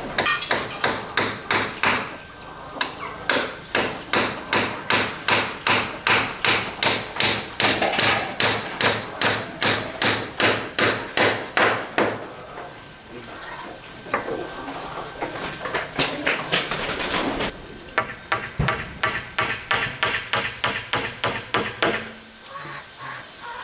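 A hammer striking repeatedly, about two to three blows a second, in several runs broken by short pauses: nails being driven into wooden boards.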